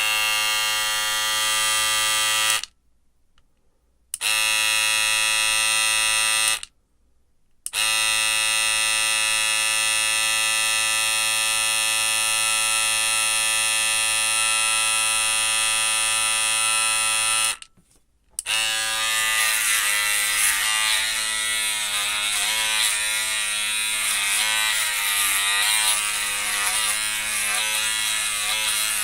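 Electric shaver buzzing steadily, switched off and back on three times. From about two-thirds of the way in it is shaving: its steady buzz turns uneven and wavering as the blades cut hair.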